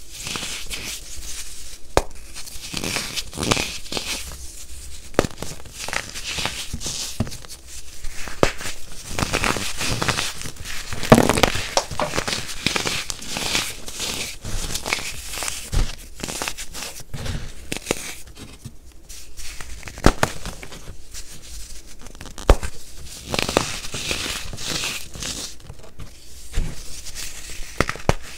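Hands crushing and crumbling pieces of molded baking soda in a bowl: a dry, gritty crunching and crackling with many small sharp snaps, the loudest about 11 seconds in.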